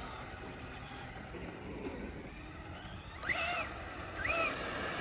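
Traxxas Slash RC truck's VXL brushless electric motor whining in two short throttle bursts about three and four seconds in, each pitch rising and then falling, over a low steady rumble of the truck running.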